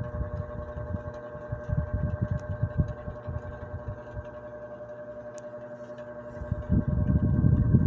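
A 50 cm, 200 W table fan running, its motor giving a steady hum with a few high tones over it. Gusty low rumble from the fan's airflow buffets the microphone, easing off in the middle and coming back strongly near the end.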